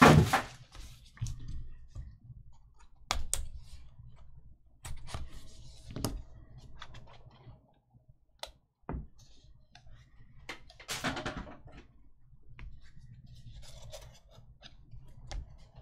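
A small paperboard trading-card box being handled and opened: scattered taps, clicks and scrapes of cardboard, loudest right at the start, with a longer rustle of cards and box rubbing about eleven seconds in.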